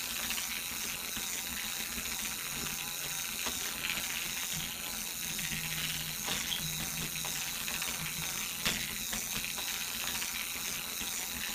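LEGO 10196 Grand Carousel's Power Functions motor and plastic gear train running steadily as the carousel turns, a continuous whir with fine gear ticking and a faint hum. There is a sharper click a few seconds in and another past the middle.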